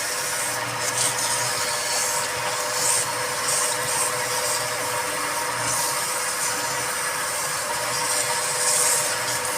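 Wood lathe running with a steady motor hum, while a turning tool cuts the spinning wood in repeated short hissing passes.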